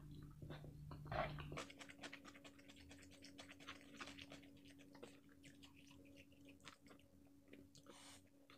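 Close-miked chewing of crispy fried chicken, heard as a dense run of small crunches and crackles starting about a second and a half in.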